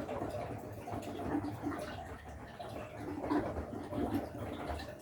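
Washing machine running, with water sloshing unevenly in the drum.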